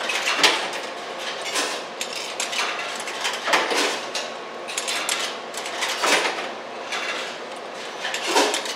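Quarters being pushed one after another into soda vending machine coin slots, each dropping through the coin mechanism with a short metallic clink, about one a second.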